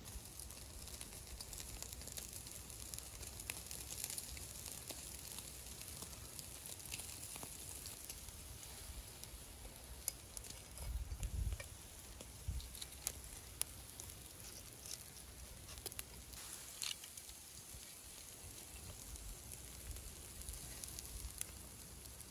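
Lamb rib chops on metal skewers sizzling over hot charcoal, with many small pops and crackles scattered through a steady faint hiss. A brief low rumble comes a little past halfway.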